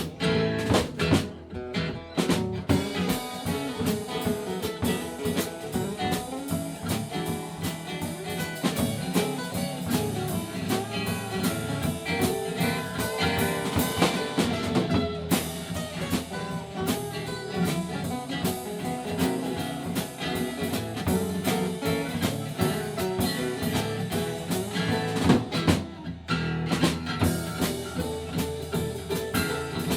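Live country band playing an instrumental break between verses, with guitar and a drum kit keeping a steady beat.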